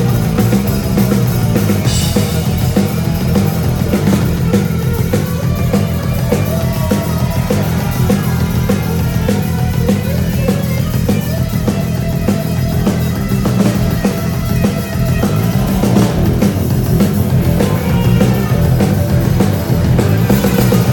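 Loud live punk rock band playing an instrumental break: distorted electric guitar, bass and drum kit driving on without vocals, heard through amplifiers on stage.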